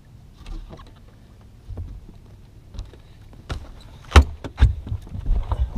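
Several knocks and low thumps on a bass boat's deck, a few scattered ones and then a quick cluster, the loudest about four seconds in, as a just-caught bass is landed and handled aboard.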